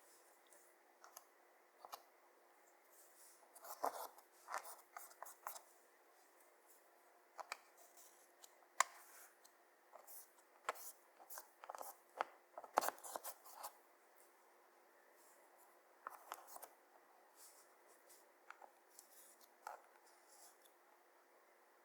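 Close-up ASMR handling sounds of clear slime being mixed with eyeshadow and glitter: scattered small clicks and crackles at irregular intervals, with pauses between.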